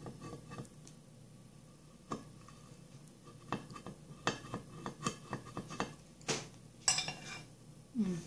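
Soldering-iron tip tapping and scraping on a glass baking dish through thin satin as it burns around a paper template: a scattered run of light clicks and ticks, with a few louder knocks near the end.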